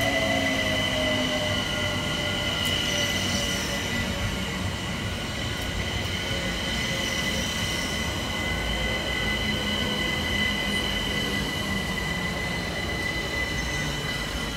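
London Overground Class 378 Capitalstar electric train arriving at a platform. A whine falls in pitch over the first couple of seconds as the train slows, a steady high squeal holds throughout, and the running noise fades gradually toward the end.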